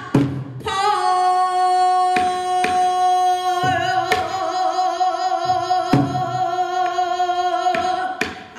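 Female pansori singer holding one long sung note for about seven seconds, steady at first and then with a wide vibrato from about halfway, over a few sharp knocks.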